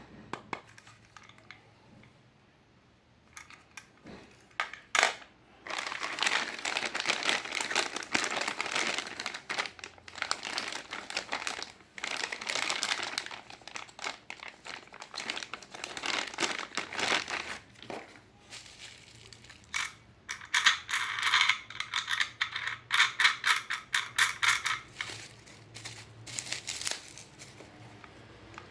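Plastic packaging crinkling and rustling as it is handled and pulled off, in long spells of crackle with scattered clicks, then a fast rasping stretch a little past two-thirds of the way through.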